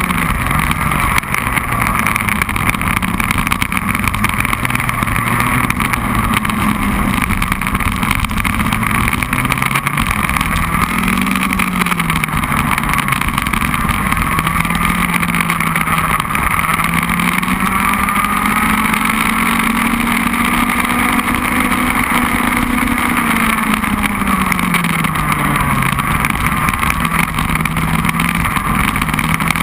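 Racing kart engine heard close up from a camera mounted on the kart, running hard on a lap: its pitch rises steadily along the straights and drops sharply as the driver lifts for corners, several times over.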